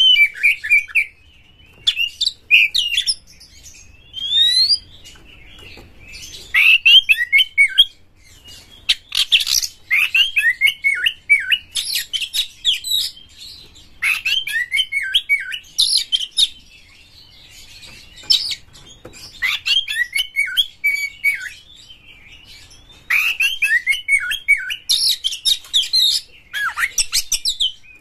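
Oriental magpie-robin singing: repeated phrases of rapid, varied whistles and chattering notes, each a second or two long, with short pauses between them.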